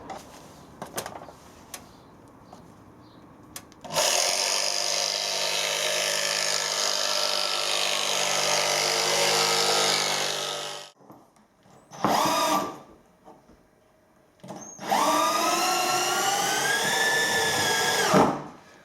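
A cordless power tool running in three goes: a long steady run of about seven seconds, a short burst, then a run of several seconds whose pitch rises and levels off, with a few light clicks and taps before it starts.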